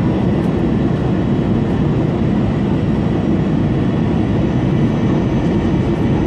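Steady rumble of a jet airliner's engines and airflow heard inside the passenger cabin during the descent to land, heaviest in the low range and unchanging throughout.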